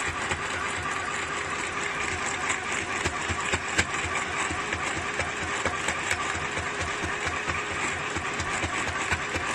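FHSM-505 sewing machine running and stitching fabric: its small electric motor hums steadily under a rapid, even clatter of needle strokes.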